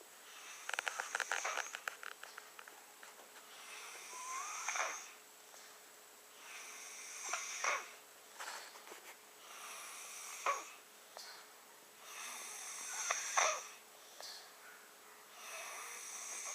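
A six-year-old child snoring in his sleep, labored breathing through a blocked nose with his mouth open. There are about five breaths, roughly every three seconds, each swelling and ending in a short sharp catch. The first breath has a rattling flutter.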